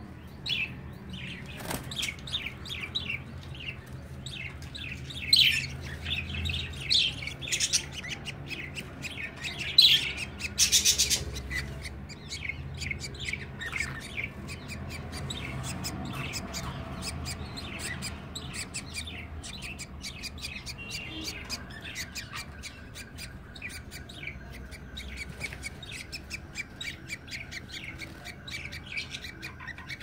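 Budgies chirping and chattering, many short high chirps in quick succession, with louder bursts and a fast run of chirps about ten seconds in.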